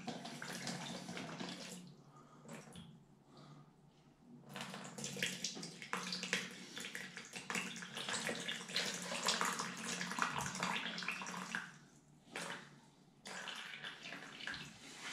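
Water rushing out of newly installed hot and cold supply pipes through a hose into a plastic bucket, flushing installation debris and dust out of the pipework before the shower mixer is fitted. The flow drops away from about two seconds in until about four and a half seconds, then runs strongly, dipping once more briefly near the end.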